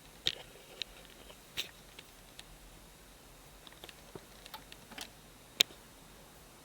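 Sparse light clicks and taps, with one sharper click about five and a half seconds in, and no motor or water running: the Piko WS5522 washing machine is at rest after finishing its cycle.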